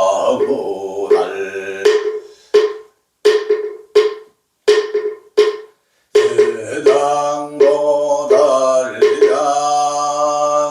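Buddhist dharani chanting by a male voice breaks off for six evenly spaced strikes on a moktak (wooden fish) about 0.7 s apart, each with a short ringing tone. The chanting resumes about six seconds in.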